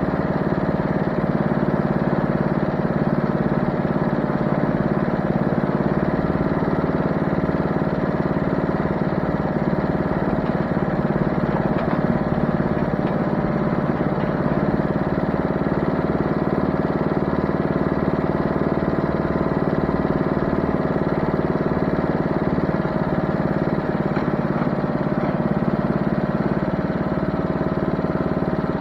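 An engine running steadily at constant speed, its hum even and unchanging.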